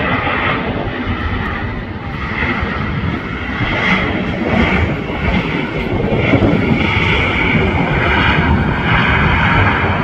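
Air France Airbus A319 jet airliner's engines running as it rolls along the runway, a steady dense jet noise that grows a little louder about six seconds in.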